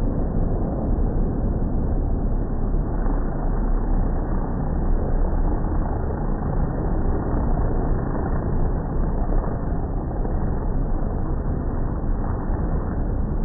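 Midget race car engines heard in slow motion as the pack comes around the dirt track on a restart: a steady, deep, dense rumble.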